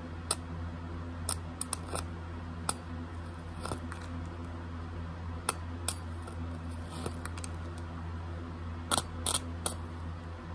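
Low-voltage carbon arc snapping and crackling in sharp, irregular pops as a carbon electrode touches and melts a steel wire coil, the loudest cluster of pops about nine seconds in. A steady low hum runs underneath.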